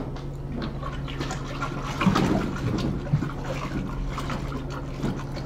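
Wort being stirred in a brew pot with a spoon to dissolve liquid malt extract: liquid sloshing with small irregular clinks and scrapes, busiest about two seconds in.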